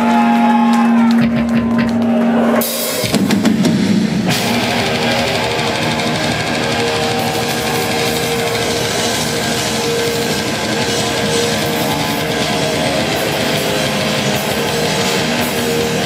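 A death metal band playing live. A single held note and scattered drum hits come first, then about four seconds in the full band comes in with distorted guitars, bass and drums, loud and dense.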